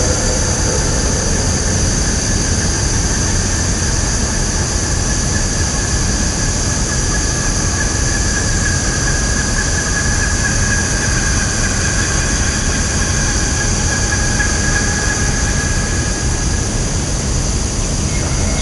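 Woodland ambience: a steady high-pitched drone over a constant low rumble, with a fainter held tone lower down that strengthens around the middle.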